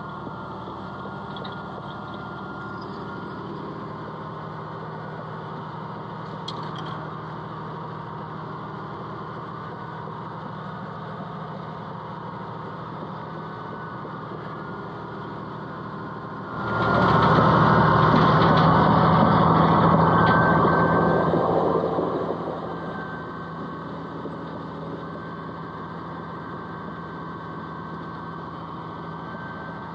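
Komatsu bulldozer's diesel engine running steadily. About seventeen seconds in it grows suddenly much louder for about five seconds, then eases back down.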